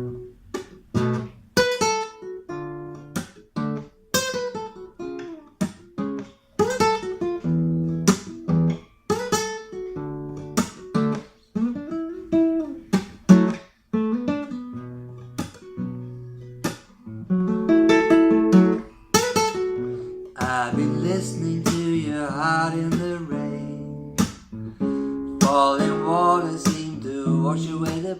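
Instrumental intro on acoustic guitar, with picked notes and chords ringing out. From about twenty seconds in, a sliding, wavering melody joins over the guitar.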